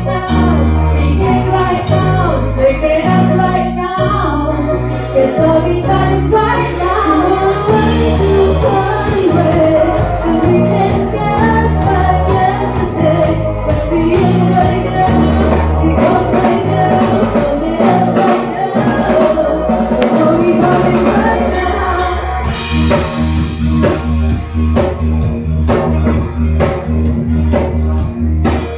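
Pop song with a singer over a steady bass and drum beat.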